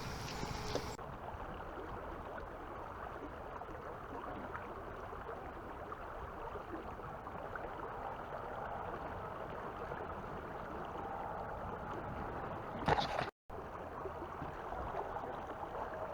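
River water flowing steadily. About three-quarters of the way through, a brief louder burst of sound cuts off abruptly.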